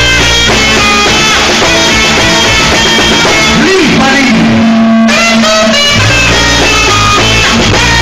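Loud, lively band music led by a saxophone melody over a steady repeating bass line, with a sliding note about four seconds in.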